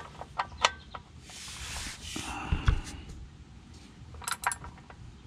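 Socket ratchet clicking in short runs as it tightens a car's oil drain plug, with a rustle of handling and a dull knock between the runs.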